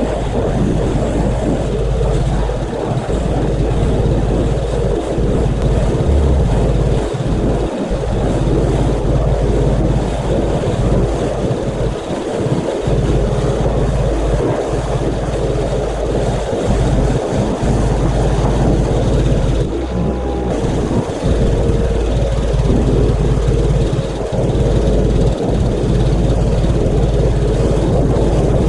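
Pressure washer running steadily, its motor humming under the hiss of the water jet as siding is cleaned.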